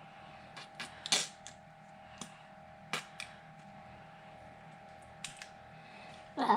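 Irregular light clicks and knocks of a metal tablespoon against a mustard jar and mixing bowl while mustard is scooped out, with a louder clatter near the end. A faint steady hum runs underneath.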